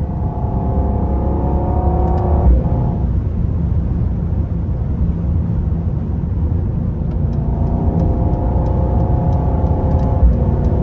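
Twin-turbo AMG V8 of a 2022 Mercedes-AMG GLE 63 S, heard from inside the cabin, accelerating hard at highway speed. The engine note rises and breaks with a low thump at an upshift about two and a half seconds in. It then runs steady, climbs again from about seven seconds, and shifts once more near the end.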